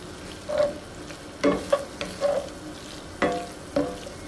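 A plastic masher-style utensil stirring and chopping ground beef and vegetables in a cast-iron skillet, knocking against the pan about seven times at an uneven pace, each clunk with a short ring, over a steady low sizzle from the filling cooking.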